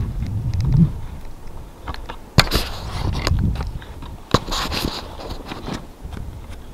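Wind on the microphone at first, then handling noise: two sharp clicks about two and four seconds in, each followed by rustling, like clothing or a hand moving on the camera.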